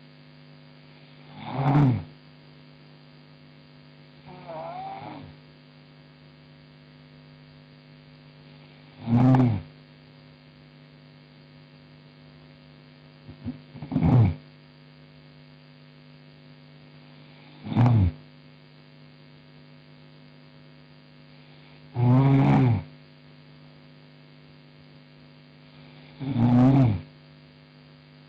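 A woman snoring in her sleep: about seven short snores spaced four to five seconds apart, one of them much fainter, over a steady low electrical hum.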